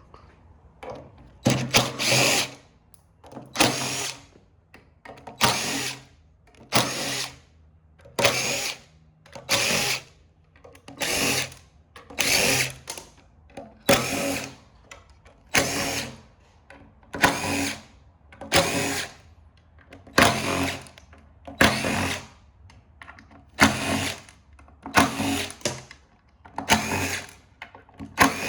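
Power drill run in short repeated bursts, about one every second and a half, while screws are worked out of scrapped printer parts.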